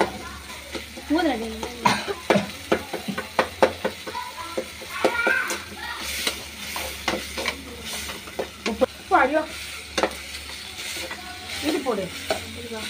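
A metal spoon stirring and scraping onion, tomato and ginger-garlic paste as it sautés in a steel pan, with frequent irregular clinks of spoon on metal over a steady sizzle.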